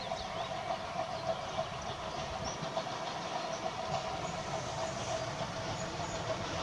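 Distant TKt48 steam tank locomotive running toward the station, its running noise steady and slowly growing louder as it approaches.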